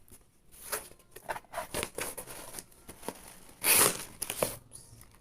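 Packaging being handled and pulled apart as a parcel is unpacked: a string of short crinkling, tearing rustles, the loudest a sharp rip about three and a half seconds in.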